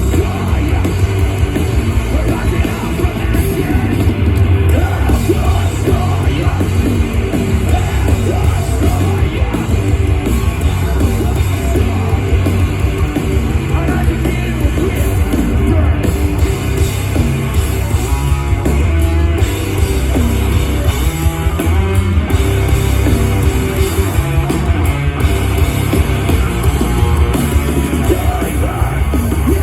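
Live hardcore punk/metal band playing loud, with distorted guitars, heavy bass and drums, and shouted vocals.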